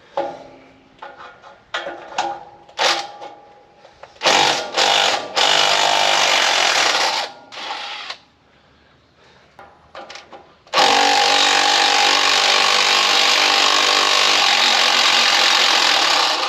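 Impact wrench hammering the exhaust flange bolts loose under an engine's exhaust manifold: a short run about four seconds in, then a long steady run from about eleven seconds in until near the end. Light clicks and clanks of tools come before it.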